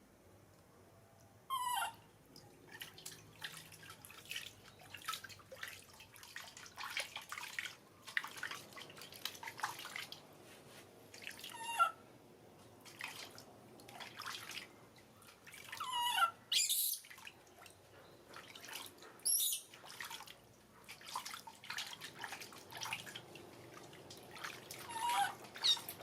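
Baby monkey giving short, high squeaks that fall in pitch, five times, with many soft wet clicks between them.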